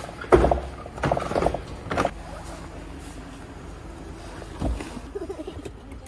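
Camping gear being handled and loaded into a car: a few loud knocks and thuds in the first two seconds and another near the five-second mark, over a steady low rumble.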